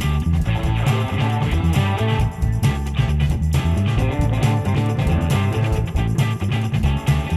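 Background rock music with guitar and a stepping bass line.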